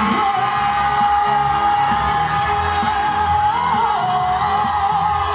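Live concert music: a band accompanying a singer who holds one long sustained note, which wavers briefly about three and a half seconds in.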